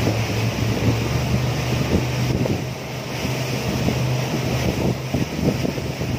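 Speedboat under way: the engine drones steadily and low, with wind buffeting the microphone in irregular low thumps.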